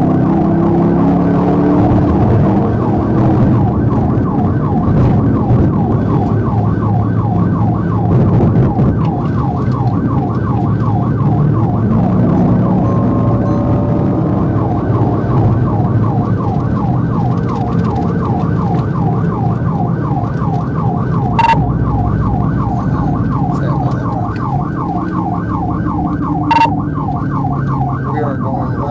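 A police patrol car's siren on a fast rising-and-falling yelp, about three sweeps a second, over the car's engine and road noise at highway speed. Two sharp clicks come in the last third.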